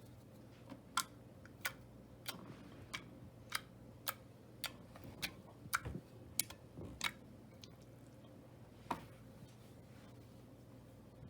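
Slime from inside a squish ball being squeezed and worked by hand, giving a series of sharp clicks and pops about every half second, then one more a couple of seconds later.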